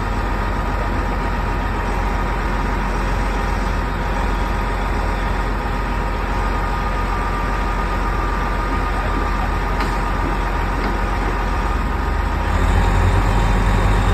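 Heavy rotator tow truck diesel engines running steadily to drive the boom hydraulics while lifting an overturned cement mixer truck, with a steady whine over the engine rumble. The engine gets deeper and louder about twelve seconds in.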